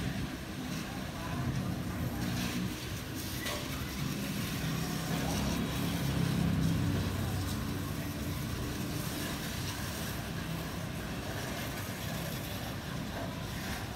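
Low, distant rumble of a Boeing 747-400's four jet engines as the airliner climbs away after takeoff. It swells about six seconds in, then slowly fades.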